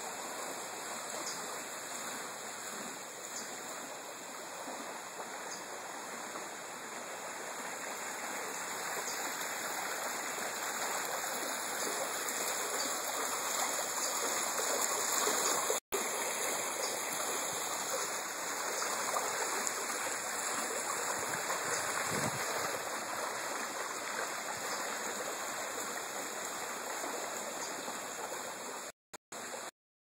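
Steady rush of running water, growing a little louder toward the middle. The sound cuts out for an instant about halfway through and a few times near the end.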